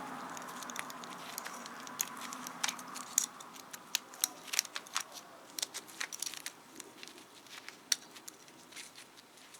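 Nylon trim line being wound by hand onto the plastic spool hub of a Ryobi EasyEdge edge trimmer: irregular light clicks and rustling of line against plastic.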